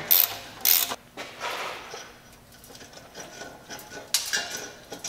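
Socket ratchet being swung in short strokes to run a loosened, rusted exhaust flange nut off its stud: quick bursts of ratchet clicking, two in the first second and another about four seconds in, with quieter metal handling sounds between.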